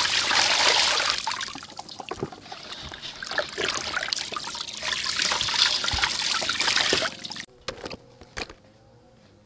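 A stream of water pouring and splashing onto fish in a metal basin as hands rub and rinse them. The water sound stops suddenly about seven and a half seconds in, leaving a quiet background with a few faint clicks.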